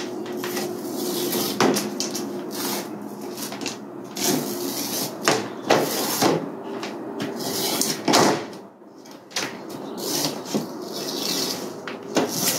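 Rubber spline being pulled out of the groove of an aluminium mosquito-screen frame, with the old mesh rustling as it comes loose: a continuous run of scraping and rubbing with several sharper clicks.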